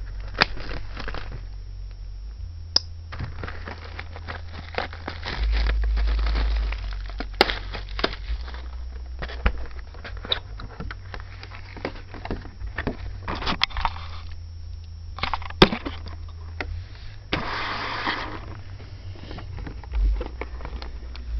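A trading-card hobby box and its plastic wrap being handled and opened by hand: crackling, rustling and small clicks and knocks, with a heavier low bump about six seconds in and a longer burst of crackling, tearing-like noise a few seconds from the end.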